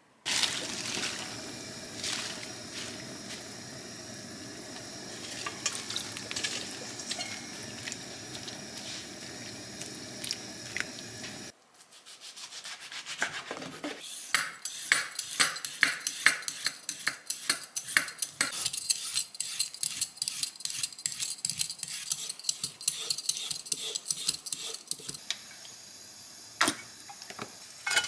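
Hand peeler scraping down a raw carrot in quick, repeated strokes. This follows a stretch of steady, even noise.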